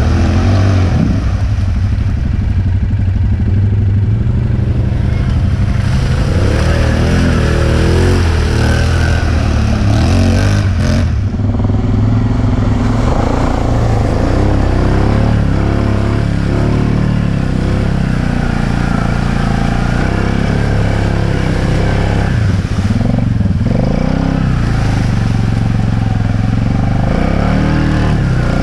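ATV engine running and revving as it drives through deep mud ruts and water, its pitch rising and falling with the throttle.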